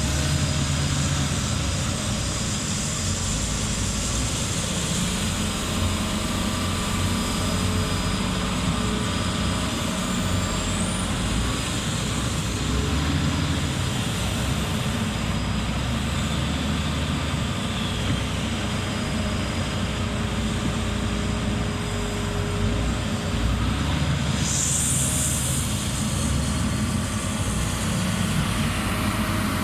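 Heavy diesel earthmoving machinery running steadily, a continuous low engine drone with faint steady whines above it. A short hiss comes about 24 seconds in.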